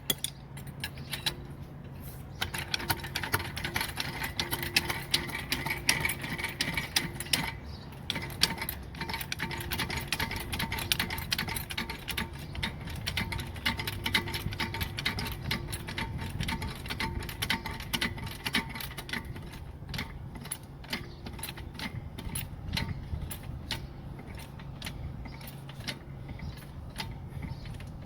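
Car jack being worked to raise the car: a long run of rapid metallic clicks and ratcheting, steady throughout.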